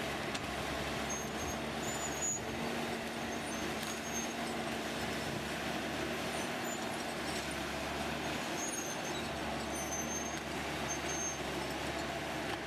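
Steady running noise of heavy machinery's engine, even throughout, with a few brief high squeaks scattered through it.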